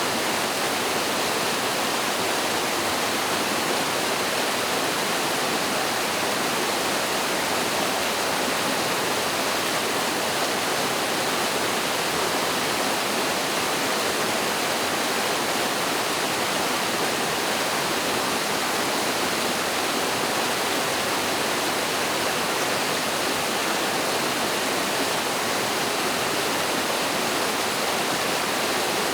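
Mountain stream pouring over a small waterfall: a steady, even rush of water with no breaks.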